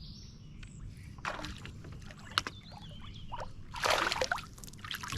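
Sounds of moving about in a fishing kayak: a sharp knock about two and a half seconds in and short rustling, splashy bursts, the loudest near the end, over a steady low rumble.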